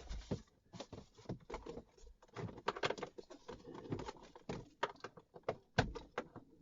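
Irregular small clicks, taps and scrapes of a flathead screwdriver prying at the plastic lock tabs of wiring connectors on the back of a car's instrument cluster.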